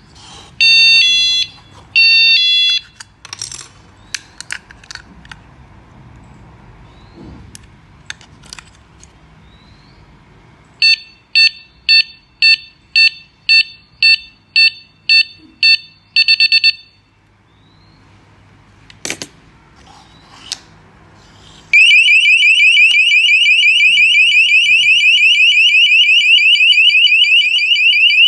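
A TOWODE battery door alarm sounds a series of signals. First come two short bursts of multi-tone beeping, then scattered clicks and knocks. Next is a run of about ten short beeps at roughly two a second, ending in a quick rapid burst. Near the end the full alarm goes off: a loud, steady, rapidly pulsing high-pitched siren that lasts about six seconds before it cuts off.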